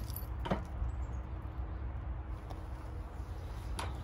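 Two light clicks, about half a second in and near the end, from hands working metal parts at the end of a mini excavator's hydraulic bucket cylinder, over a steady low rumble.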